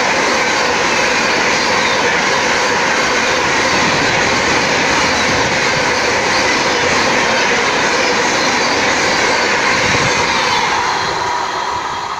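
Coaches of the New Delhi–Howrah Rajdhani Express passing close by at about 130 km/h, a steady loud rush of wheels on rails. It begins to fade about ten and a half seconds in as the end of the train goes by and draws away.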